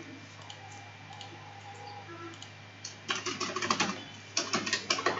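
Computer keyboard typing: two quick runs of keystrokes, the first about three seconds in and the second a second or so later.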